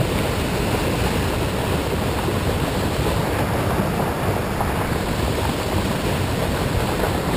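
Churning white water rushing out of a pump station's outflow into a canal, pushing out floodwater: a steady, kinda loud rush without breaks.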